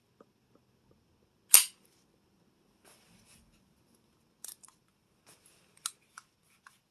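Sharp clicks from handling a 1911 pistol with a mounted weapon light: one loud click about a second and a half in, then a few fainter scattered clicks near the end.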